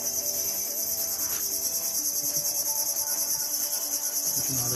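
A steady, high-pitched insect chorus with a fine rapid pulse.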